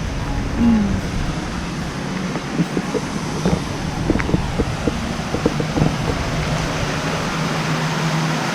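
Steady outdoor background noise with a low rumble and scattered light clicks.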